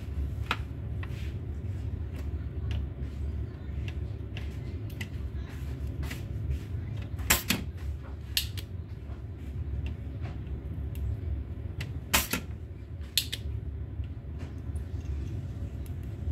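Scattered clicks and taps of hand tools worked on a circuit board during desoldering, the sharpest about seven and twelve seconds in, over a steady low hum.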